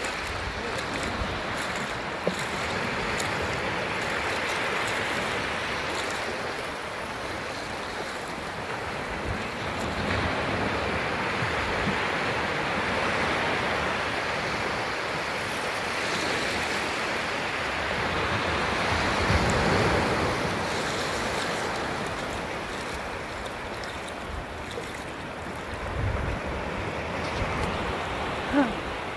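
Small surf breaking and washing over sandy shallows, swelling and ebbing every few seconds, with wind buffeting the microphone now and then.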